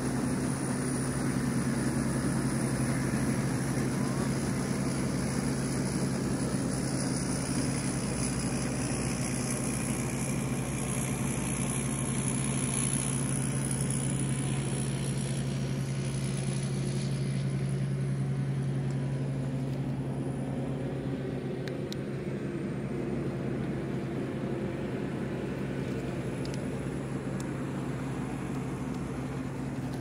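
A steady engine drone, one unchanging pitch, a little softer after about eighteen seconds, with a thin high whine above it.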